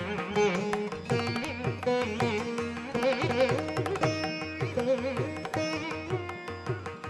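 Background instrumental music in Indian classical style: a plucked string melody over a steady percussion beat.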